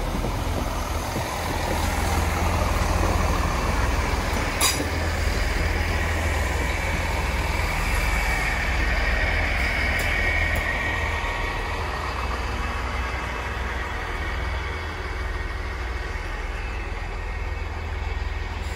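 GWR diesel passenger trains passing on the line: a steady rumble of engines and wheels on the rails, with one sharp click about four and a half seconds in and a faint high ringing tone around the middle.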